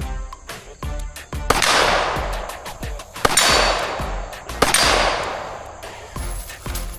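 Background music with a steady beat and long crashing swells, with sharp cracks mixed in.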